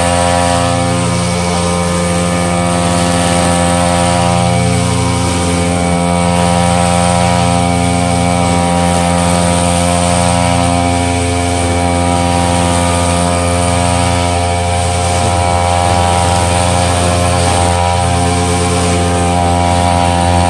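Sumo backpack brush cutter's two-stroke engine running steadily at cutting speed while trimming grass.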